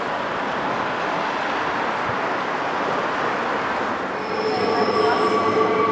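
Passenger train running on the rails with a steady rushing rumble; about four seconds in, a steady high-pitched metal squeal sets in and the sound grows louder.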